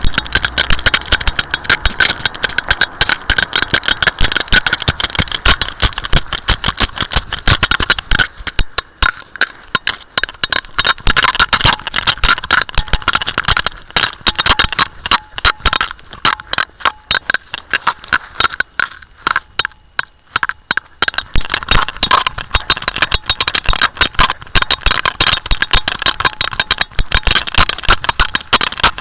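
Dense, irregular clattering and rubbing from a dog-mounted camera jostling against the dog's fur and collar as it moves, with short quieter spells about a third and two-thirds of the way through.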